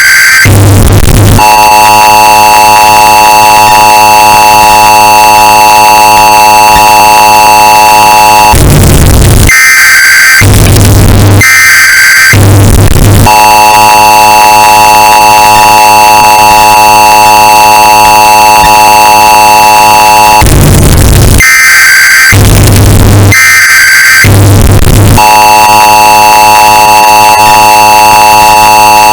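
Emergency Alert System tones, bass-boosted and clipped to a harsh distorted blare: sets of three short screeching bursts of the SAME data header alternate with the long two-tone attention signal, held about seven seconds each time.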